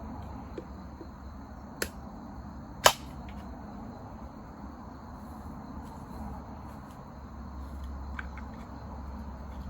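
Campfire crackling with two sharp pops of burning wood, the second and louder about three seconds in, and a few faint ticks, over steady cricket chirring.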